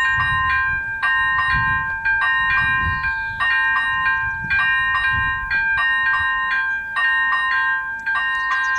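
Electronic level-crossing warning bell (AŽD ZV01/ZV02) ringing in a steady, rapid repeating rhythm, the signal that the crossing is closed for an approaching train.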